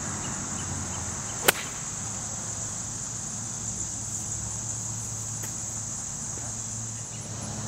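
A golf ball struck once with a lob wedge: one sharp click about one and a half seconds in, over a steady high insect buzz.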